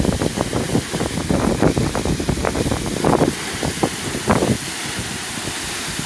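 Reservoir water pouring over the rim of a circular bellmouth overflow spillway and churning down its shaft: a steady rushing, with irregular gusts of wind buffeting the microphone.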